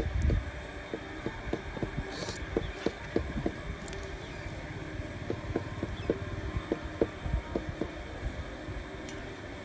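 Handling noise as a black rubber strip is stretched and wrapped tightly around a small wooden crossbow stock: irregular small creaks, taps and rubs of rubber on wood and fingers over a low rumble, with one brief scraping hiss about two seconds in.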